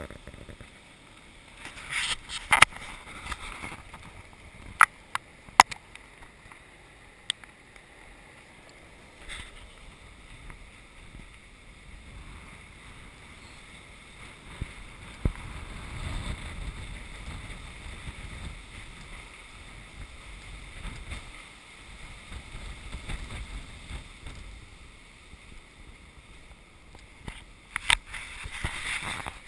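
Storm wind buffeting the camera's microphone in low rumbling gusts, heaviest through the middle stretch, over a steady hiss of surf washing across a flooded beach. Several sharp knocks in the first few seconds and again near the end.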